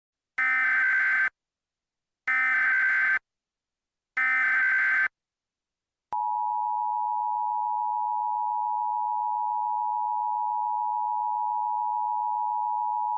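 Emergency Alert System broadcast tones: three short bursts of buzzy, warbling SAME header data about a second each, with a second's gap between them. About six seconds in, the steady two-tone EAS attention signal begins and holds. The headers are two alerts played over each other, which scrambles them.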